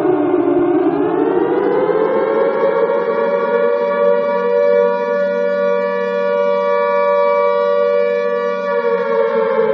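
Alarm siren wailing: its pitch bottoms out just after the start, rises for about two seconds, holds steady and loud, then starts to fall again near the end.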